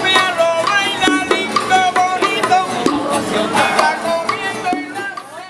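Cuban street band singing a traditional tune to acoustic guitars, bongos and claves. The music fades down near the end.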